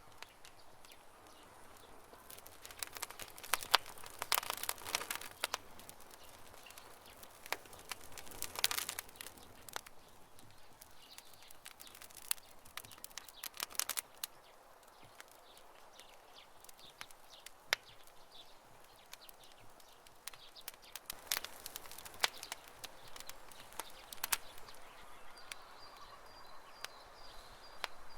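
Wood fire crackling, with irregular sharp pops and snaps that come in clusters over a soft hiss. Faint bird calls in the background, with a thin repeated chirp near the end.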